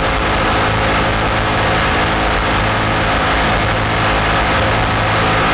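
Race jet boat's engine running steadily at an unchanging pitch, heard on board from the cockpit, with a constant hiss over it.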